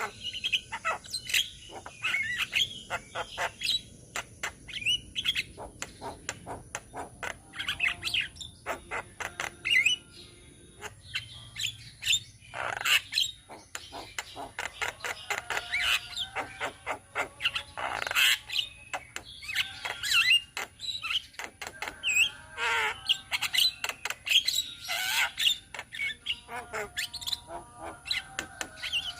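A flock of Javan mynas calling together: a dense, unbroken chatter of curving whistles and sharp clicks, many birds at once.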